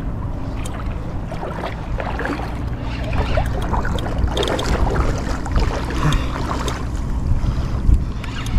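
Seawater sloshing and lapping around a person wading chest-deep, with wind buffeting the microphone.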